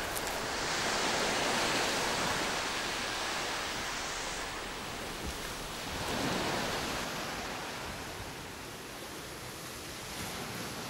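Waves washing on a beach: a rushing noise that swells and fades, with a second swell about six seconds in.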